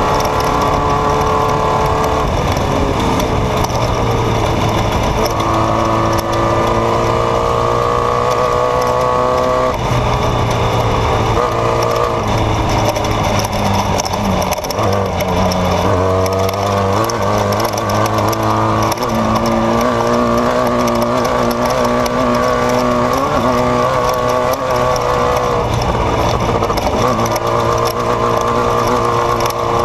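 Off-road race vehicle's engine under hard throttle. The revs climb slowly and drop back several times, as with gear changes or lifting off over rough ground, over a steady rush of noise.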